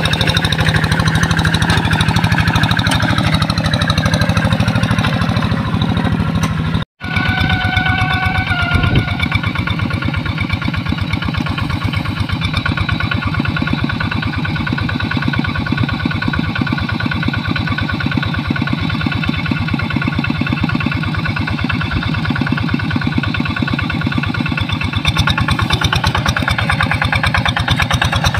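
Single-cylinder diesel engine of a two-wheel hand tractor running steadily while it pulls a moldboard plough through a flooded rice paddy, its firing beats rapid and even. The sound cuts out for an instant about seven seconds in.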